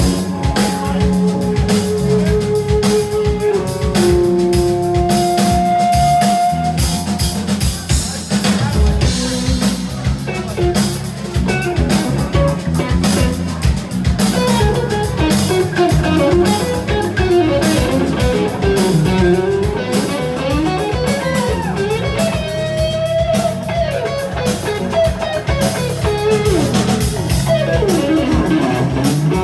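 Live electric guitar solo over a band with drums. It opens with a few long held notes, then moves into fast runs and bent, wavering notes from about halfway through.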